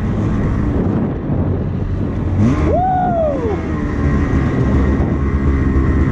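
Snowmobile engine running under throttle, revving up and dropping back once about two and a half seconds in.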